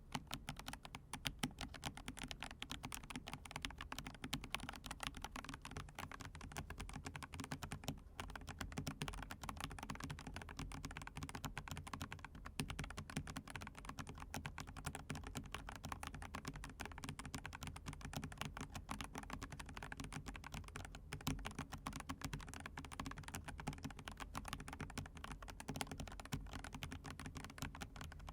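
Fast, continuous typing on a full-size hot-swap mechanical keyboard (Monstargear Ninja108PRO) with Gazzew Boba U4T tactile non-click switches and PBT keycaps: many keystrokes a second.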